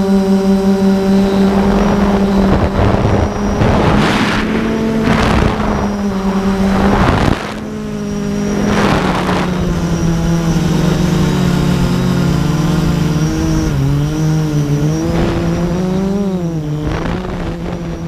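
Drone's electric motors and propellers humming, recorded from its onboard camera, the pitch steady at first, then shifting and wavering with throttle in the second half. Several brief rushes of wind noise cut across it.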